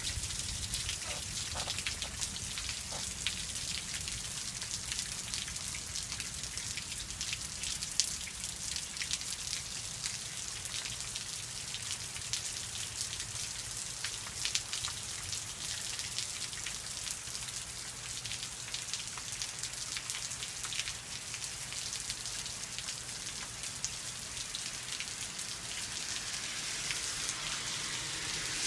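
Steady spring rain, an even hiss with many individual drops striking close by.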